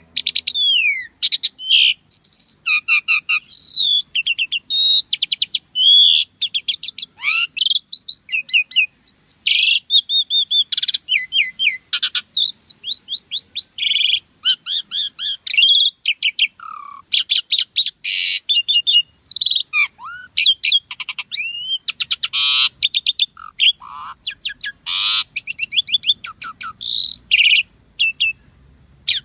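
Asian pied starling (jalak suren) singing continuously: a dense, varied stream of whistles, rapid chattering trills and squeaky notes, some gliding up or down, with only brief pauses.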